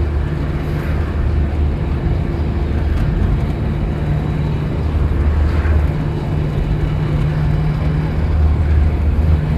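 Engine and road noise heard from inside the cabin of a moving GAZelle marshrutka minibus: a steady low drone that swells a little from time to time.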